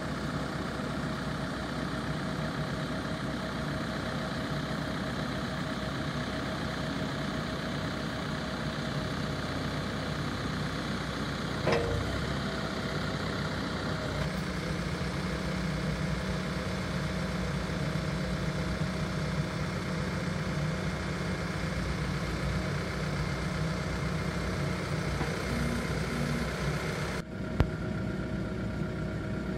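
Diesel engine of a Case backhoe loader idling steadily. There is a single knock about twelve seconds in, and the engine note grows stronger and lower a couple of seconds later.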